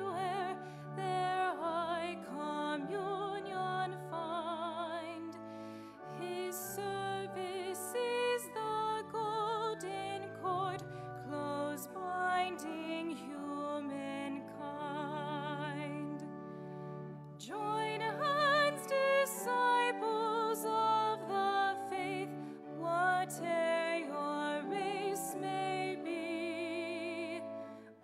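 A woman singing a slow solo song with a wide vibrato, accompanied by piano. The voice breaks off briefly about two-thirds of the way through, then comes back in.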